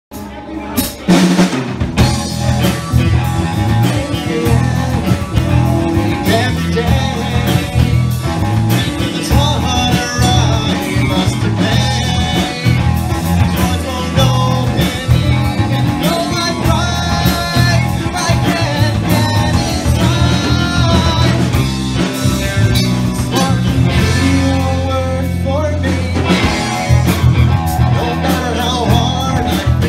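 Live progressive rock band playing, with drum kit, electric guitar, bass guitar and keyboards under a man's lead vocals.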